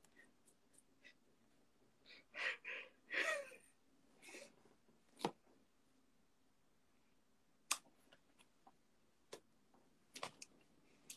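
Faint breathy vocal sounds, like gasps and sighs, about two to four seconds in, then a handful of sharp clicks spaced a second or two apart over a faint room hum.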